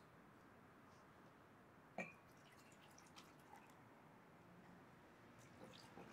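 Near silence with faint steady hiss; about two seconds in, one sharp glass clink, likely from bottles touching, then faint small clicks and rustles of a glass bottle being handled.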